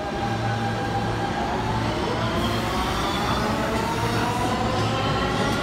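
New York City subway train running in the station: a steady rumble and low hum, with a faint motor whine that slowly rises in pitch.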